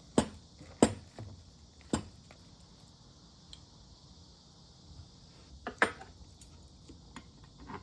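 Cutlery clinking against dishes while eating: a few sharp clicks, two in the first second, one about two seconds in and one near six seconds.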